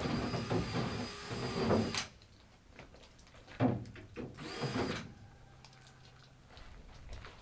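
Cordless drill boring drainage holes through the floor of a plastic storage bin: a run of about two seconds that cuts off, then a shorter burst about a second and a half later.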